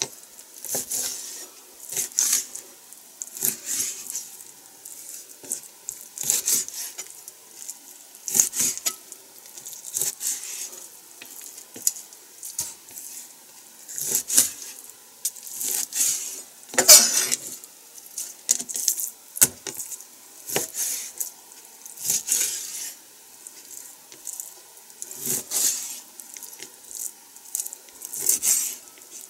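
Kitchen knife slicing raw chicken thigh on a plastic cutting board: short cutting strokes and taps of the blade on the board every second or two, one harder knock about midway.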